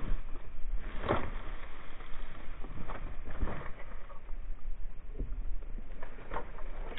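1/10-scale Axial Capra RC rock crawler rolling over and tumbling down a dry, grassy dirt slope: irregular knocks and crunches, the loudest about a second in, over a low steady rumble.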